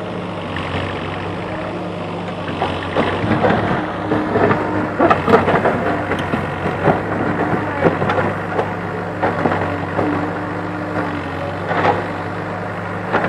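CASE backhoe loader's diesel engine running steadily while the rear bucket digs into stony ground, with crunching and rattling of rocks and dirt from a couple of seconds in until about halfway, and again near the end.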